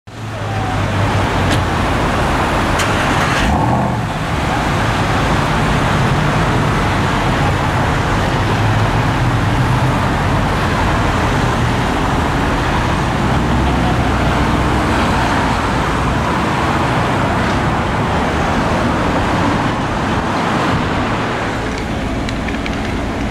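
Steady street traffic noise with a low engine rumble underneath.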